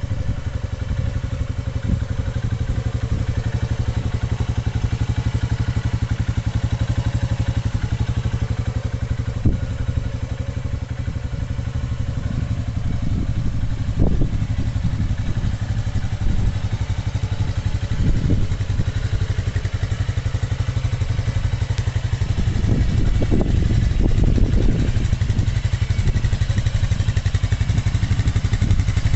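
Honda TRX420 FourTrax ATV's single-cylinder four-stroke engine running steadily, with a few brief louder moments around the middle and a longer one shortly before the end.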